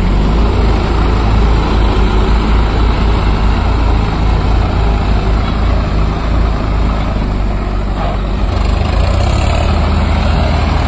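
Swaraj 744 FE 4x4 tractor's three-cylinder diesel engine running steadily as the tractor drives through deep paddy-field mud.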